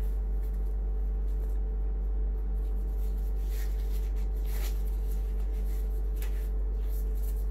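Disposable gloves being pulled onto the hands and worked into place: soft rubbing and rustling a handful of times, over a steady low hum.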